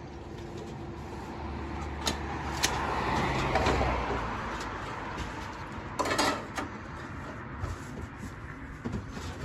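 Portable seamless gutter machine running, its motor humming as the metal coil is rolled and formed, with a rising rattle that peaks a few seconds in and then eases off. A short, sharp metallic clatter about six seconds in.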